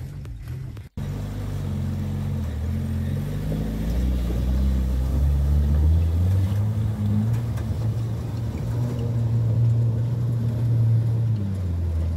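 Off-road 4x4 jeep's engine pulling through a shallow river crossing, its pitch rising for a while, with water splashing around the wheels. The sound cuts out briefly about a second in.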